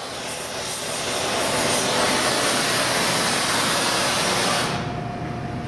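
Gas torch flame hissing steadily as it heats a copper transmission-line flange so the solder flows into the joint. The hiss grows over the first second or so, and near the end its high part drops away, leaving a lower rush.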